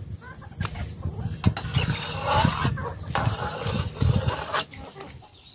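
Metal ladle clinking and scraping in an aluminium bowl of soy milk as foam is skimmed off, a few sharp clicks over an irregular low rumble.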